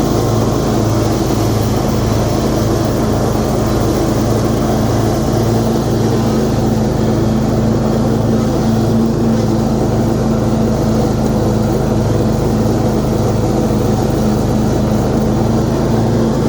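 Cub Cadet RZT 50-inch zero-turn mower's 22 hp Briggs & Stratton engine running steadily at mowing speed with the cutting blades engaged, cutting tall grass. The deck runs without rattling or shaking.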